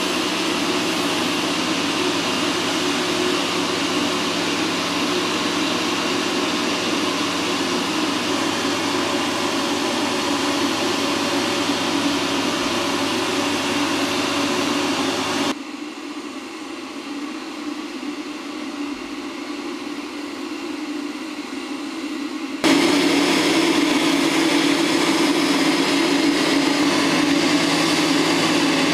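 Steady drone of heavy machinery with a low hum. It drops abruptly to a quieter, thinner drone about halfway through and jumps back louder about seven seconds later.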